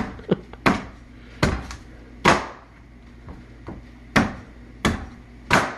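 Gurkha knife (kukri) chopping into a young coconut's husk: about seven hard whacks at uneven intervals, with a couple of lighter taps between them.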